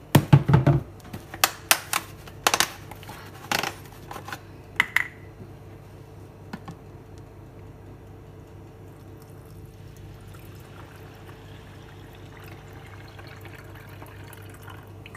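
A few sharp plastic clicks and knocks in the first five seconds as a water jug and bottle are handled, then water pouring steadily from the plastic jug into a plastic pancake-mix shake bottle.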